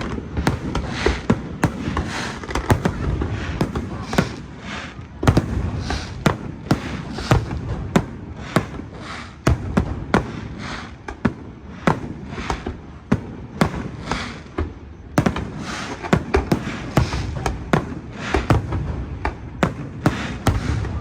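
Aerial fireworks show: shells bursting in quick, irregular succession, many sharp bangs over a continuous crackle and rumble.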